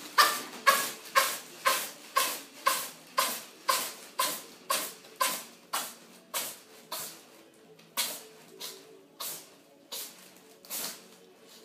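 A cat sneezing over and over in a rapid run of about twenty sneezes, roughly two a second, growing weaker and further apart toward the end.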